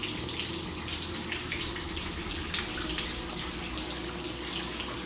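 Water splashing and bubbling in a jetted bathtub: a steady hiss full of small crackles.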